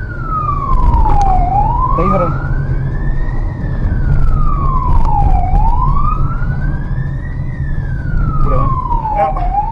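Police car siren wailing, its pitch rising and falling slowly about once every four seconds, over the low rumble of the car's engine and road noise.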